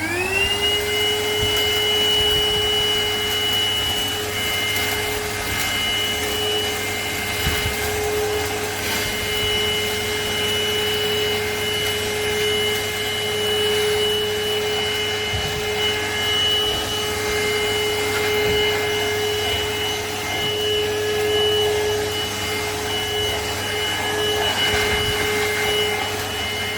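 Cordless handheld vacuum cleaner with a narrow crevice nozzle spinning up at the start, then running with a steady high whine while sucking up spilled cat litter, small gritty clicks among the airflow noise. It is not especially loud, a normal level for such a device.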